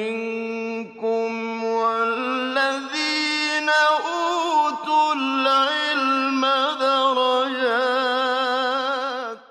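Vocal chant of long held notes that waver and glide in pitch, cutting off abruptly near the end.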